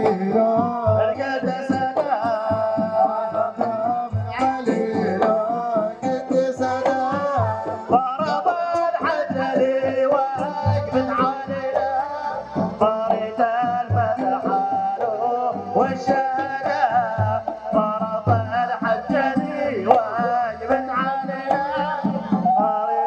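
Dhofari folk music from a live troupe: a wavering, ornamented melody carries on almost without a break over a steady beat of hand drums.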